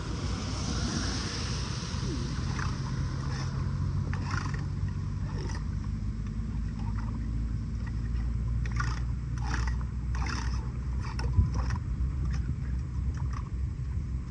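Floodwater rushing and gurgling down a storm drain as a steady low rumble, with scattered short splashes and knocks.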